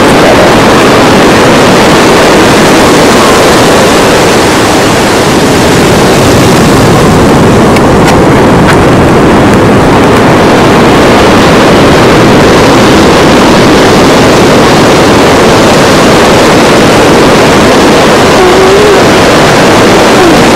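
Loud, steady rushing noise of ocean surf, with wind buffeting the camcorder microphone.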